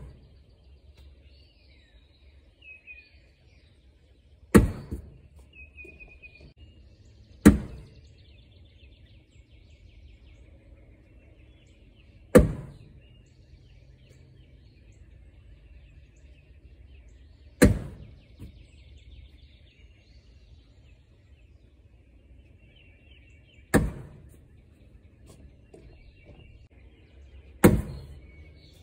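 Cornhole bags landing on a wooden ACE cornhole board, six separate thuds a few seconds apart, each dying away quickly. Birds chirp faintly in the background.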